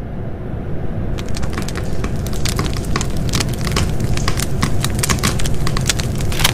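A steady low rumble with dense, irregular crackling that starts about a second in.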